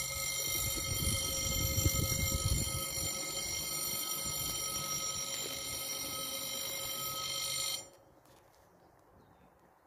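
French level-crossing warning bell ringing steadily while the barriers lower, then cutting off suddenly about eight seconds in as the barriers come fully down.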